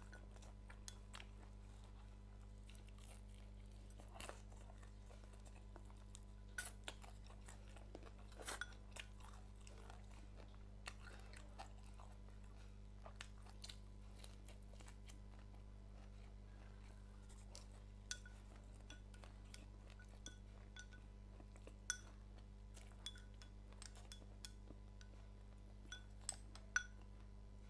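Faint chewing and scattered light clicks of chopsticks against a bowl as someone eats, over a steady low hum.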